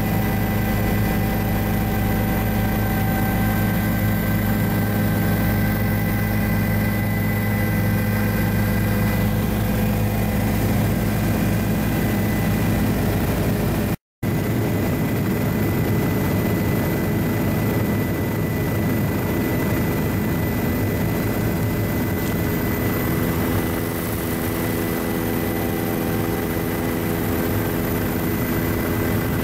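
Helicopter engine and rotor drone heard from inside the cabin: a steady, loud hum with several steady tones. It cuts out for an instant about halfway through and comes back with a little less bass.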